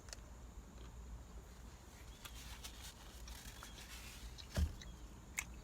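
Low steady rumble in a car's cabin with scattered small clicks and a few faint high chirps, and one louder thump about four and a half seconds in.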